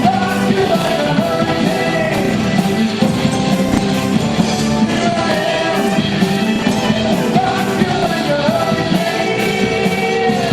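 Rock music with a singing voice over guitar and drums at a steady beat.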